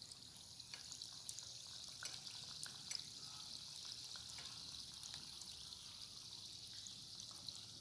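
Besan-battered cauliflower pakoras deep-frying in hot oil: a faint, steady sizzle with small scattered pops and crackles.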